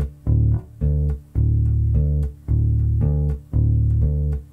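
Electric bass guitar tuned to drop D playing a slow repeated figure: a low D plucked together with its octave, about two notes a second. Each note is cut short by the fretting hand muting the strings.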